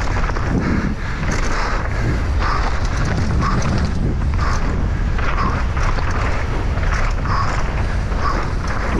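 POV sound of a Kellys Noid mountain bike descending a rough downhill trail at race speed. Wind buffets the microphone over the tyres' rumble, and the bike's frame and parts rattle and knock constantly.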